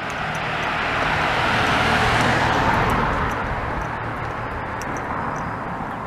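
A car driving past on the road: tyre and engine noise swells to its loudest about two seconds in, then fades away.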